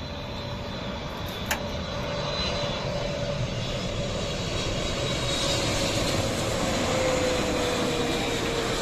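Boeing 777 airliner on final approach with gear down, its twin turbofan engines' jet noise growing louder as it passes low and close, with a tone that slowly falls in pitch as it goes by. A single sharp click about one and a half seconds in.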